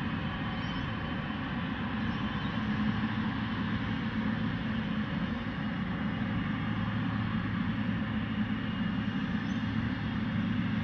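Boeing 777 freighter's GE90 turbofans running at taxi idle: a steady rumbling hum with a faint high whine.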